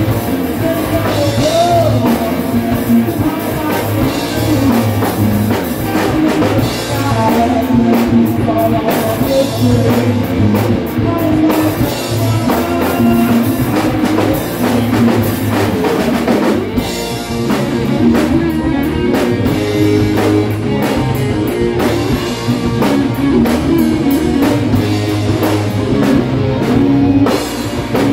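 Rock band playing live at rehearsal: electric guitars and a drum kit, loud and continuous.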